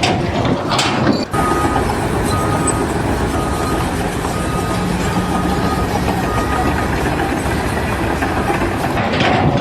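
Heavy vehicle or machinery running with a dense steady noise, with a faint high beep repeating about once a second. The sound starts abruptly about a second in.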